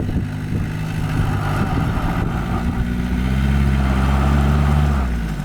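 Old Tata Safari 4x4's engine running, then revving up about three seconds in to a higher, louder pitch before easing off near the end.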